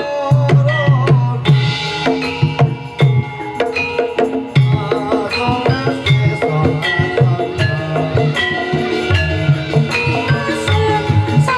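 Live Javanese gamelan music for jaranan: kendang hand drums playing fast, busy strokes over sustained ringing notes of metallophones and gongs.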